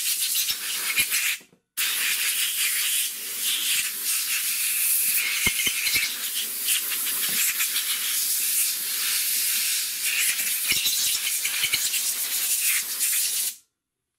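Compressed-air blow gun hissing as it blows trapped dirt from around the fuel pump module's lock ring on a truck fuel tank. It stops briefly about a second and a half in, then runs steadily and cuts off suddenly near the end.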